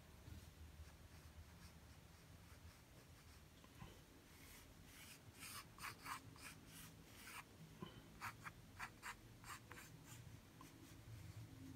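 Faint scratching of a graphite pencil lead on paper: a run of quick, short sketching strokes from a metal clutch pencil, starting about four seconds in and ending near the close.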